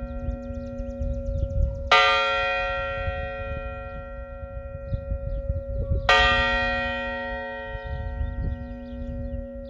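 Church bell tolling: two strokes about four seconds apart, each sharp strike ringing on in many overtones that fade slowly, with the bell's low hum sounding steadily between strokes. A low rumble lies beneath throughout.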